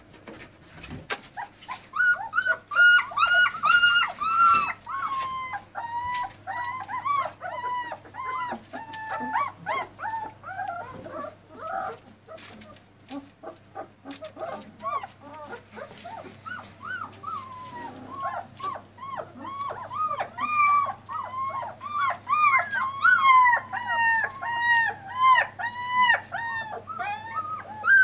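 German Shepherd puppies about three weeks old whining and crying in a long run of short, high-pitched, rising-and-falling calls, one close after another. The calls ease off for a few seconds midway, then pick up again.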